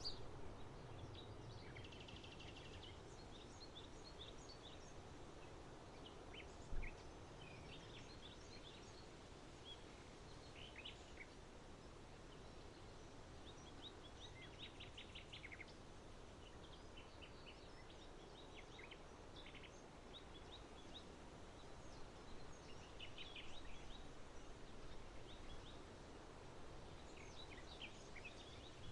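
Small birds chirping and twittering on and off in short calls, faint over a steady low background rumble of environmental noise. A single brief low thump about seven seconds in.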